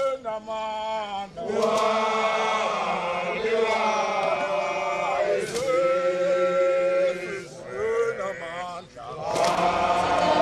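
Men's voices singing a chant in long held phrases, with short breaks between the phrases.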